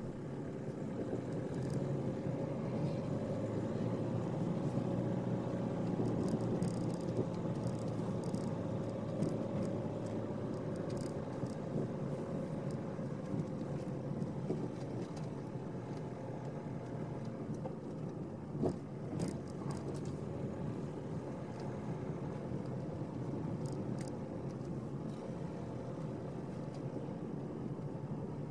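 Car engine and tyre noise heard from inside the cabin while driving slowly through town, a steady low rumble with a faint tone that rises a little and then eases. Two short clicks sound about two-thirds of the way through.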